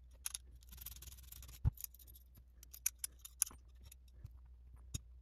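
Small metal nuts and lock washers clicking and clinking as they are picked up and set down, with brief scrapes of handling in between. A few sharper taps stand out, the loudest about a second and a half in and another near the end.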